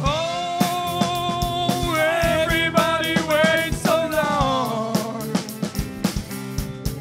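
Live rock band playing an instrumental passage, with no singing. Over steady drums, a lead line slides up into a long held note, plays a quick run of notes, then glides down.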